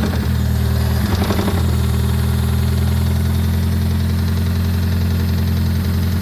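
Toyota Prius 1.5-litre four-cylinder petrol engine running steadily at idle, with a brief unsteady moment about a second in.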